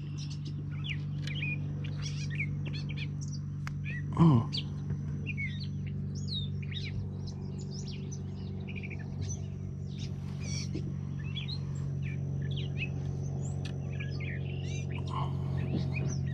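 Many small birds chirping and calling, with a thin steady high tone in two stretches. A brief falling, grunt-like sound about four seconds in is the loudest thing.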